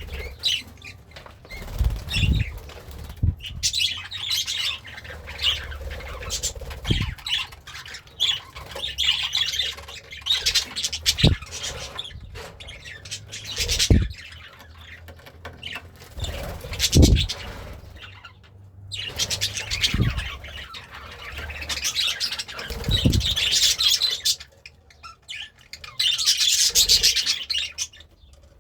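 Budgerigar chirping and chattering almost without a break, with single low thumps every few seconds.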